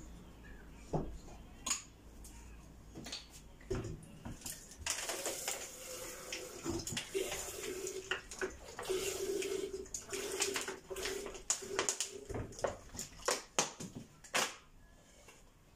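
Clear liquid pouring from an upturned plastic bottle into a stainless steel electric kettle, a steady pour lasting several seconds, that fills the kettle about halfway. A few clicks of the bottle being handled come before it, and scattered knocks after.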